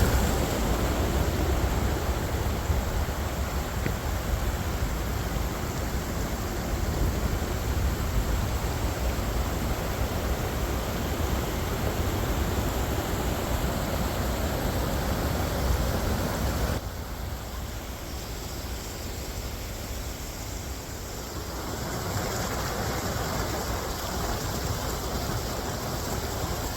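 Steady rushing wind and riding noise with a heavy low rumble from a CFMOTO CForce 500 ATV moving along a trail. It drops suddenly about seventeen seconds in and swells partly back a few seconds later.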